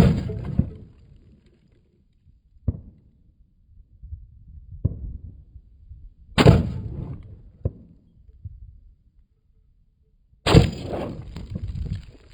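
Three shots from a Norinco SKS rifle in 7.62×39, a few seconds apart, each trailing off over about a second, with a few faint sharp clicks between them.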